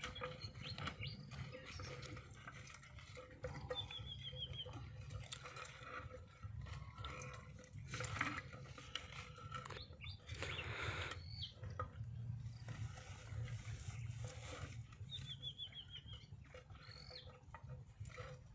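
Wooden sticks scraping and knocking inside a clay pot, with a low rumble throughout. A bird calls twice with a quick run of short falling chirps, about four seconds in and again near the end.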